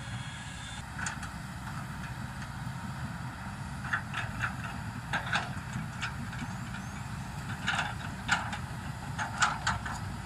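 Heavy diesel engine running steadily with a low rumble, with scattered sharp clicks and knocks over it, several in quick pairs.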